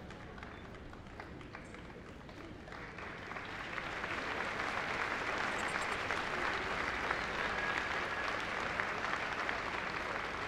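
Crowd applauding, growing louder about three seconds in and then holding steady.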